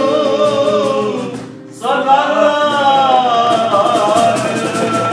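Singing with instrumental accompaniment, the music breaking off briefly about one and a half seconds in before the voices come back in.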